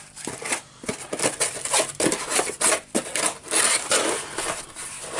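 Removed bolts, screws and small metal parts clinking and clattering as they are handled and dropped into a small parts box, a quick run of irregular clicks and knocks.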